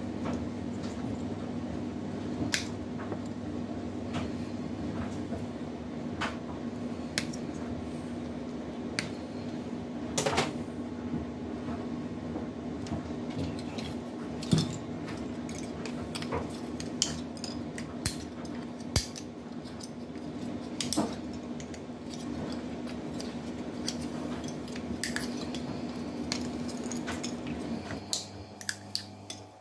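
Side cutters snipping through wires and plastic connectors from a PC's power leads, giving irregular sharp clicks and small plastic pieces clattering down. A steady hum runs underneath and stops near the end.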